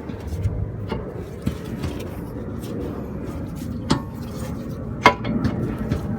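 Metal clinks and taps from tools and brake parts being handled during a brake pad job: a few sharp knocks, the loudest about four and five seconds in, over a steady low background rumble.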